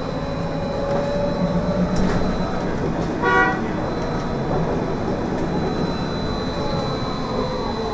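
Trolleybus under way, heard from inside: steady running and road noise with the electric drive's whine shifting slowly in pitch. About three seconds in, a vehicle horn gives one short toot.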